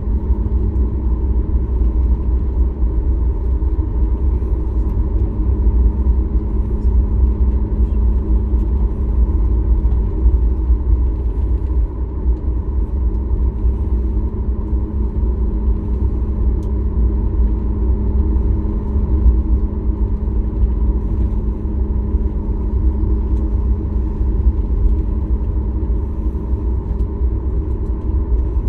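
Steady cabin noise inside a Boeing 737 MAX 8: the deep, even rumble of its CFM LEAP-1B engines and the airflow, with a few steady engine tones over it.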